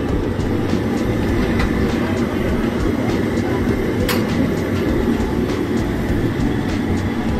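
Steady, loud rumble of busy street traffic, with a few faint sharp clicks, the clearest about four seconds in.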